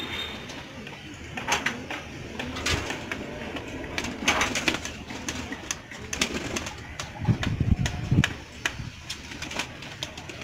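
Domestic pigeons cooing, with scattered sharp clicks and flaps of wings.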